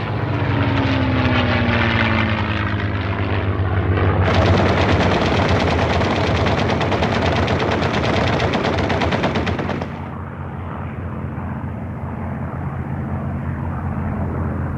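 Wartime air-raid sound: aircraft engines drone and their pitch falls as a plane passes. About four seconds in, rapid machine-gun fire breaks out and runs for about six seconds. After that the engine drone carries on, duller.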